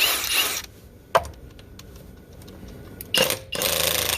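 Kobalt XTR cordless high-torque impact wrench, set to its second speed, hammering a 22 mm lug nut loose in short bursts: one at the start, a sharp click a little past a second in, then a longer burst from about three seconds in.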